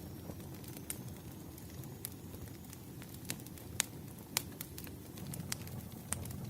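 Wood fire crackling: a steady low rustle of burning logs with scattered sharp pops, the loudest a little under four seconds in and again just after four.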